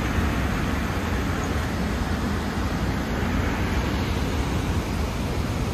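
Small waterfalls and cascades of a river rushing steadily: an even, unbroken noise with a deep rumble underneath.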